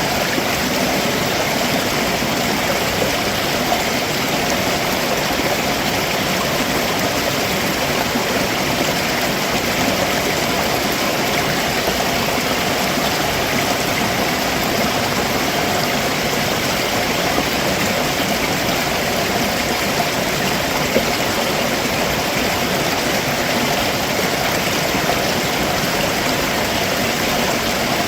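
Stream water running and splashing over rocks below a waterfall, a steady even rush.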